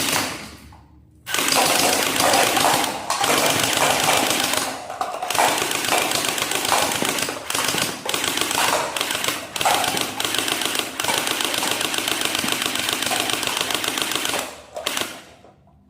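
Toy AK-47 gun playing its electronic machine-gun firing sound, a fast rattle held in long bursts with a few brief breaks.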